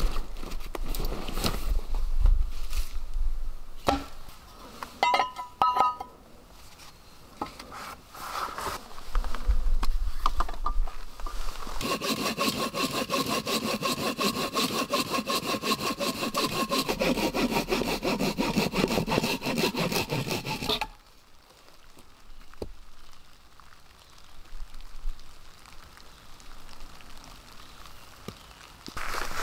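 Hand saw cutting through a round log with quick, steady back-and-forth strokes for about nine seconds, starting a little before the middle and stopping abruptly. Before it come scattered rustles and knocks, with quieter rustling afterwards.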